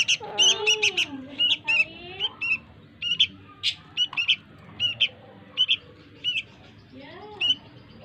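Young caged bird giving short, high chirps over and over, irregularly, about one to three a second: begging calls as it is hand-fed.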